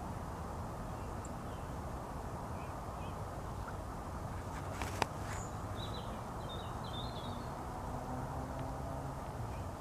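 Steady low outdoor rumble with a few short, faint bird calls scattered through it, a small run of calls a little after the middle, and a single sharp click about halfway through.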